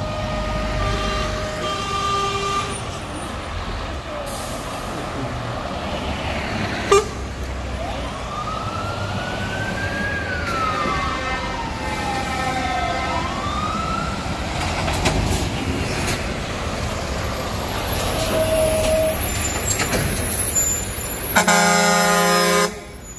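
Heavy trucks rolling past with their diesel engines running, while horns are sounded. There are short horn toots near the start and a siren wailing up and down in the middle. Near the end comes a loud air-horn blast about a second long.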